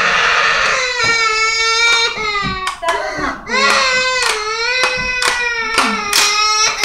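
A boy crying hard, with several long, high-pitched wails of about a second each, broken by short gasps.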